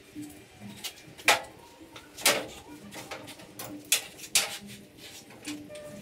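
Four sharp metallic clanks and knocks from tools and parts being handled while fitting slip-on exhaust mufflers to a motorcycle, with soft, low dove-like cooing repeating faintly in the background.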